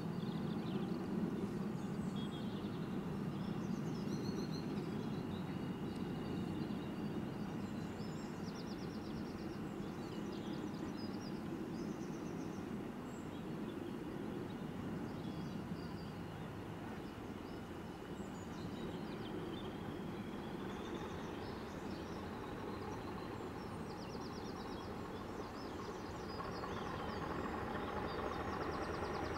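Distant diesel locomotive running: a steady low rumble with a thin high whistle that rises in pitch over the second half, growing louder near the end as the train comes closer. Birds chirp now and then.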